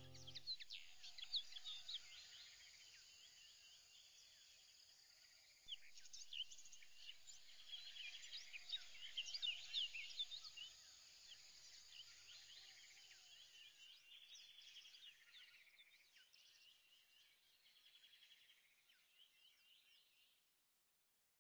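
Faint birds chirping: many short whistles and chirps over a soft steady hiss. It grows busier after about six seconds and fades out near the end.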